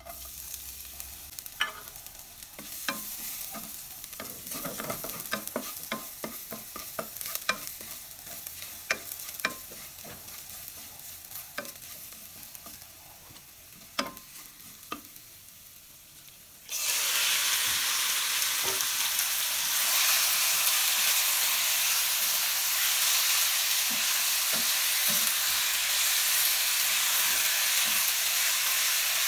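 Chopped garlic sizzling gently in hot oil in a wok, with a wooden spatula clicking and scraping against the pan as it is stirred. About halfway through, the sizzle turns suddenly much louder and denser as raw chicken pieces fry in the wok.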